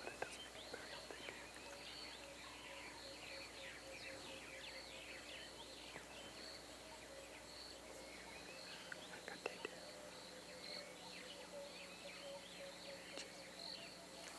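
Bush ambience: many small birds chirping with a steady high insect buzz, and a few faint clicks.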